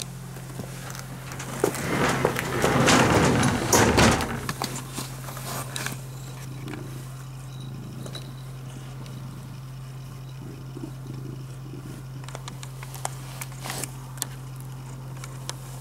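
Domestic cat rubbing close against the phone, its fur brushing loudly over the microphone for a couple of seconds, followed by scattered soft taps and clicks over a steady low hum.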